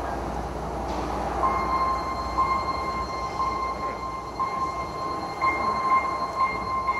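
A single high musical tone begins about a second and a half in and is held steady, dipping briefly a few times, over a low background murmur: the opening of an indoor percussion show.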